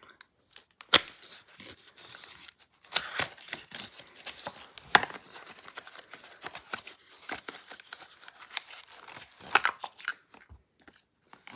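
Perfume box being unpacked by hand: packaging tearing and crinkling, with irregular sharp clicks and knocks as it is handled.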